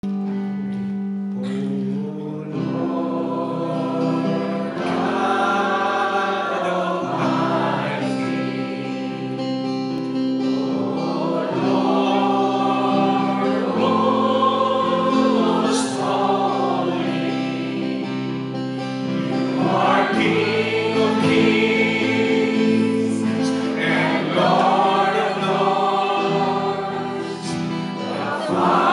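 A congregation singing a praise and worship song together, led by a singer on microphone, with guitar accompaniment. The singing goes on steadily in phrases over a held low note.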